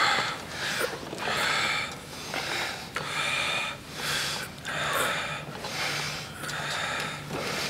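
Several men breathing hard while exercising, with a forceful exhale about once a second.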